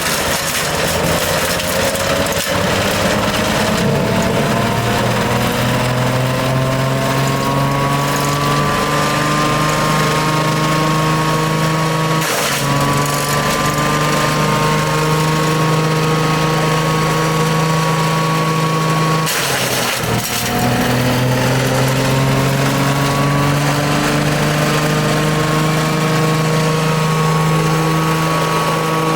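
The 16 hp petrol engine of a branch shredder running loud, its note climbing steadily as it speeds up and then holding. Twice, about twelve and nineteen seconds in, a brief loud burst of noise drags the engine note down, and it winds back up again.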